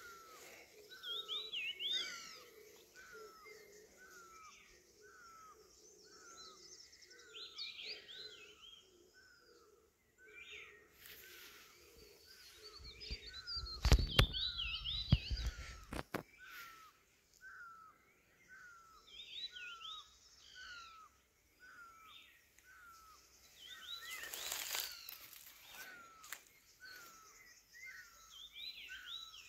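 Birds singing: one repeats a short falling chirp about every two-thirds of a second, while others add higher warbled phrases now and then. A loud low rumble breaks in briefly about halfway through.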